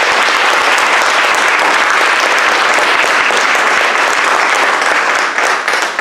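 A room full of people applauding loudly, the clapping dying down near the end.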